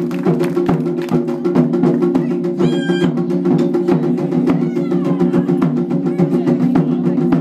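Japanese taiko drums beaten live, played through a PA system, with rapid, dense strokes in a driving rhythm.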